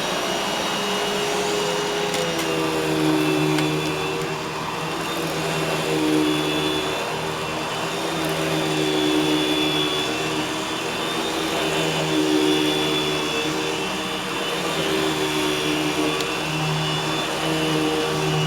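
Eureka Boss Smartvac 4870 upright vacuum cleaner running on carpet, a steady motor whine that wavers slightly in pitch and swells and dips in loudness every few seconds as it is pushed back and forth.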